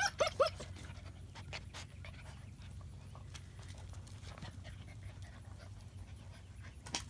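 German Shepherd puppies, nearly eight weeks old, playing and scuffling together: three short high yips right at the start, then scattered light clicks and scuffs of paws and claws on concrete.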